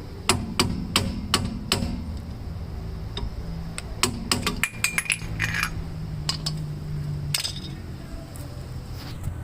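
Metal tapping and clinking at the centre of a car's rear drum-brake hub as its small dust cap is knocked loose: a quick run of five taps in the first two seconds, then a few more clinks with a brief metallic ring about halfway through.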